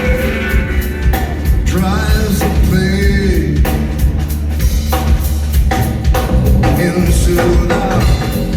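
Live rock band playing: a drum kit keeps a steady beat over a strong bass line, with a few sliding pitched sounds on top.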